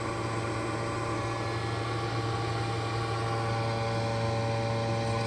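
Three small electric fans of a homemade Peltier air cooler running together: a steady hum with a few constant whining tones.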